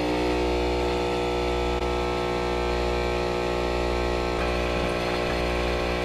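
Espresso machine's pump running with a steady hum while coffee streams from the spout onto the drip tray with no cup beneath it.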